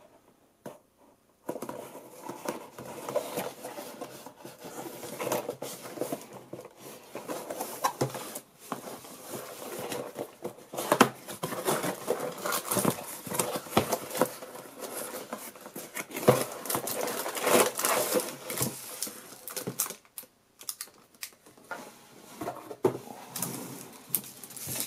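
Cardboard box and packaging being handled as toy night vision goggles are unpacked: rustling and crinkling with many small clicks and taps. It goes quiet for a moment near the end, then the handling resumes.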